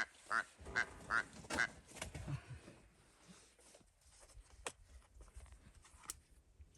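Rüppell's korhaan calling: a quick series of about five short, frog-like croaks in the first two seconds, then quieter, with a couple of faint clicks later on.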